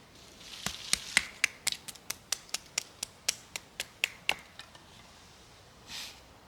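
A quick run of sharp clicks or snaps, about four a second, lasting some four seconds, followed by a short soft rustle.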